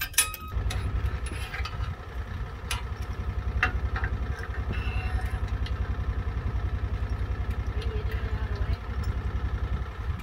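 A vehicle engine idling with an even low pulsing beat, starting about half a second in. Scattered light metallic clicks and clinks sound over it.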